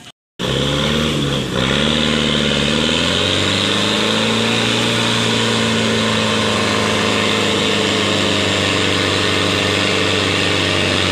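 Diesel truck engine revving hard. Its pitch rises and dips over the first couple of seconds, then holds steady at high revs. This is a loaded cargo truck straining to pull out of soft mud where it is stuck.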